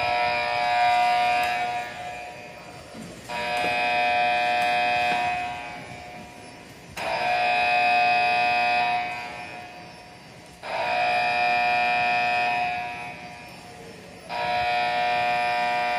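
An alarm horn sounding in repeated blasts, one steady tone with overtones, about every three and a half seconds; each blast lasts about two seconds and fades away.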